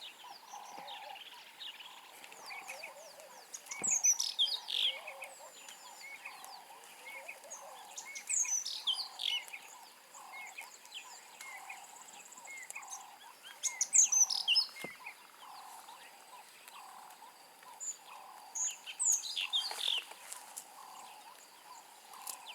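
Wild birdsong: a songbird repeats a quick, falling run of high notes four times, about every five seconds. Under it runs a steady pulsing of softer, lower calls, about one a second, with a faint high hum.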